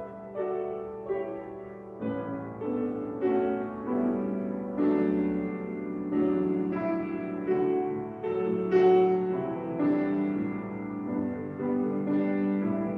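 Upright piano played solo, a steady succession of chords and melody notes, about two a second.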